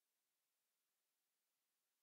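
Near silence: only a faint steady hiss at the recording's noise floor.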